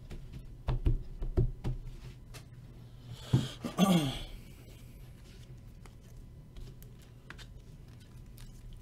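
Trading cards being handled and gathered on a table: a few light taps and clicks in the first couple of seconds, a louder brief rustle about three seconds in, then faint small ticks of card handling.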